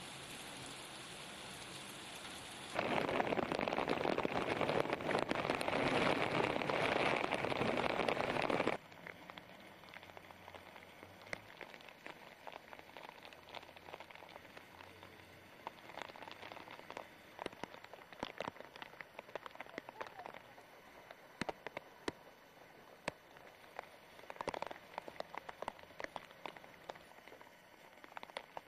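Heavy rain and hail pelting wet pavement, a steady rush that gets much louder from about 3 s in and cuts off suddenly about 9 s in. After that comes a quieter stretch of scattered taps and clicks.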